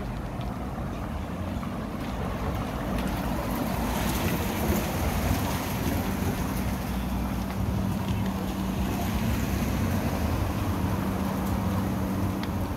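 Street traffic noise, with a vehicle engine running close by that grows louder about four seconds in and holds a steady low hum.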